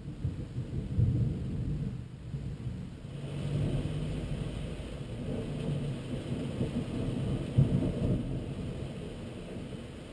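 Thunder rumbling low and rolling, swelling louder twice, about a second in and again later on.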